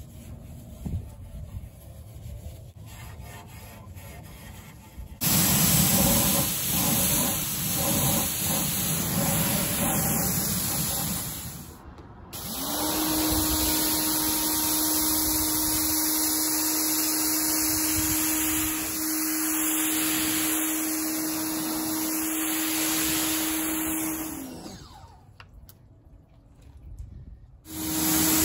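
Soft rubbing of a wash pad on an exhaust tip, then an electric pressure washer starts spraying water over the car's hood, its motor and pump running with a steady hum and hiss. The spray stops briefly about twelve seconds in and again for about three seconds near the end, then starts up again.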